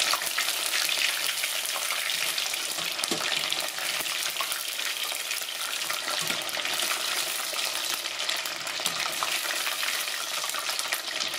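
Starch-coated chicken wings deep-frying in hot oil, a steady crackling sizzle, while a wire spider strainer stirs them with a few faint light scrapes.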